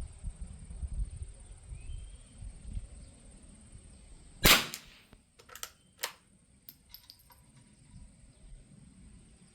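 A single .22 rimfire shot from a Winchester Model 52 bolt-action target rifle about four and a half seconds in, followed by a few lighter metallic clicks as the bolt is worked to single-feed the next round.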